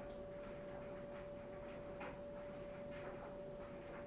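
Faint ticking, roughly twice a second, over a steady high-pitched hum.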